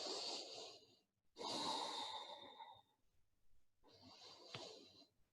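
A woman breathing slowly and deeply, three faint long breaths, the last one the softest. It is the slow, steady breathing of a held yoga pose.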